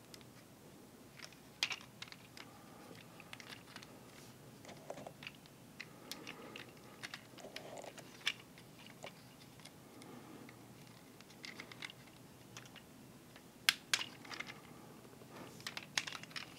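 Plastic joints and parts of a Transformers Masterpiece action figure clicking and snapping as it is turned and folded by hand toward its car form: irregular small clicks, with the sharpest snaps a little past three-quarters of the way through.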